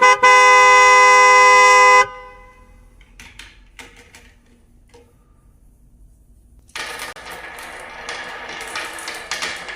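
A loud, steady horn blares for about two seconds and cuts off abruptly. After a few scattered light clicks, a dense clatter of marbles rolling and clacking down wooden track starts about seven seconds in.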